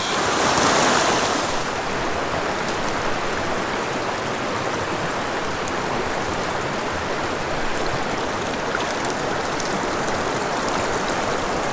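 Shallow mountain creek water running and babbling over rocks, a steady rush that is a little louder and brighter in the first second or so.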